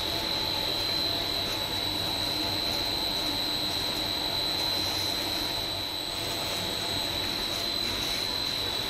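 Plastic netting extrusion machine running: steady factory machine noise with a continuous high-pitched whine over a low hum.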